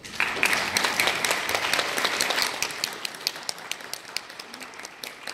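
Audience applauding at the end of the song. The clapping starts suddenly and thins out toward the end.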